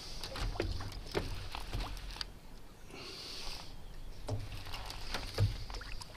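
A baitcasting reel working as a heavy fish pulls against the line, with scattered sharp clicks and knocks, a patch of high buzzing about three seconds in, water lapping at the boat, and low wind rumble on the microphone.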